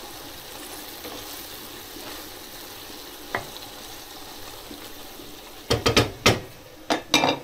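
Pork sizzling in a frying pan while a wooden spoon stirs it. Near the end come a few loud knocks and clatter as the pan is shifted on the gas hob.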